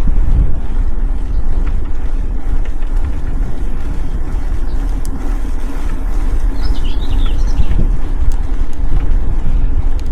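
Wind buffeting the microphone of a rider on a moving bicycle: a steady low rumble. A small bird chirps briefly about seven seconds in.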